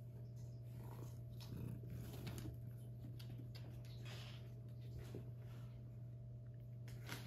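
Faint rustles and soft scuffs of a house cat rolling and creeping on a hardwood floor, over a steady low hum.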